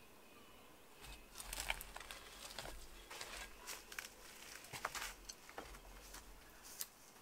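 Leaves rustling and crackling in a gust of wind, with wind buffeting the microphone as a low rumble, from about a second in until just before the end.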